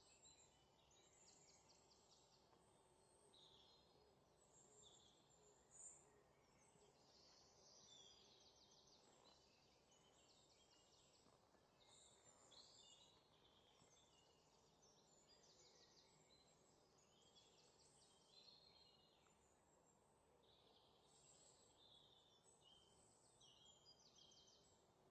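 Near silence, with only very faint high chirps and quick trills scattered throughout, like distant birdsong.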